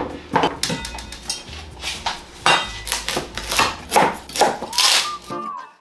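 Kitchen knife chopping onion on a cutting board: irregular sharp knocks, about two or three a second. Music comes in near the end.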